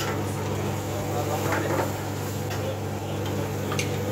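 Steady low hum of a commercial kitchen range hood's exhaust fan, with a few light clinks and scrapes of a metal spatula against the frying pan.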